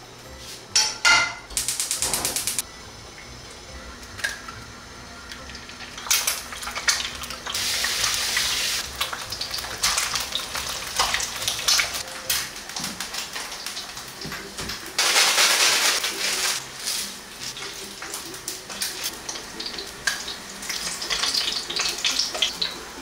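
Kitchen cooking sounds: a frying pan knocking onto a gas hob, a quick run of rapid clicking, pots, packets and utensils being handled with bursts of rustling, and dumplings frying in the pan as a wooden spatula turns them near the end.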